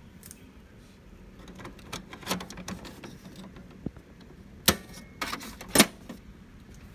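Plastic clicks and knocks as an HP 805 ink cartridge is pressed into the carriage of an HP DeskJet 2300-series printer and the access door is handled; two sharp snaps about a second apart in the second half are the loudest.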